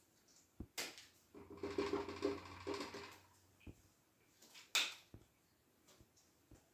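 Marker on a whiteboard, scrubbing and faintly squeaking for a second or two as a small shape is coloured in, with a few light clicks and taps of the markers around it.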